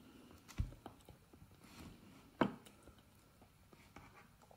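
Quiet eating sounds: soft chewing and small clicks of a metal fork picking at a tray of fries, with one sharper click about two and a half seconds in.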